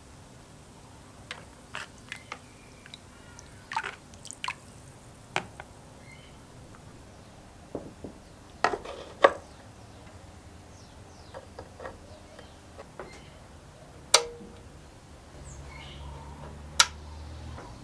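Scattered light clicks, taps and clinks, like small metal parts and hand tools being picked up and set down on a workbench, with a few sharper knocks. A low steady hum comes in near the end.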